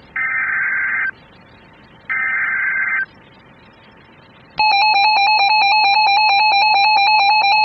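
Emergency Alert System tones: two buzzy data bursts of about a second each from the SAME header, then about four and a half seconds in the loud, continuous EAS attention signal begins. The tones announce an incoming severe thunderstorm warning.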